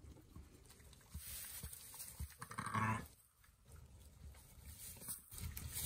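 A sheep gives one short, low call about two and a half seconds in, over faint rustling and small knocks in straw bedding as a newborn lamb moves about under its ewe.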